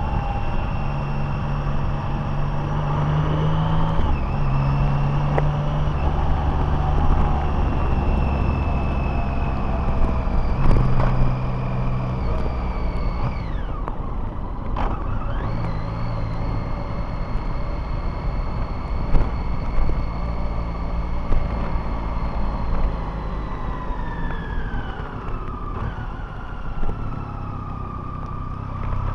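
A road vehicle being driven: engine and road noise, the engine note holding steady and then shifting every few seconds, with a high whine that falls in pitch near the end as the vehicle slows.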